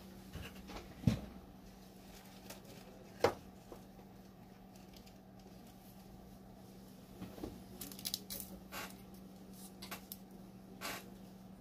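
A few short knocks and light clicks over a steady low hum. The two sharpest knocks come about a second and about three seconds in, and a cluster of lighter clicks follows in the second half.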